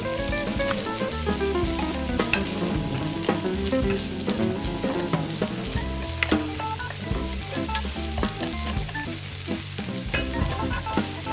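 Slices of meat sizzling in oil in a tiny stainless-steel frying pan, with scattered light clicks of a small metal fork against the pan as the pieces are turned and lifted out.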